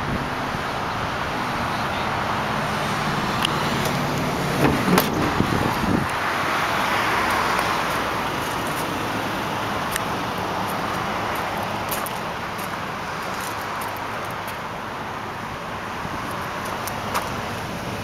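Steady traffic noise from a nearby highway, swelling for a few seconds in the middle as vehicles pass, with a few faint clicks.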